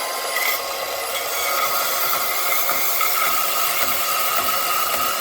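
Milwaukee M18 FUEL cordless deep cut band saw cutting through a workpiece: a steady rasping saw noise over the motor's whine. The blade is worn and getting dull.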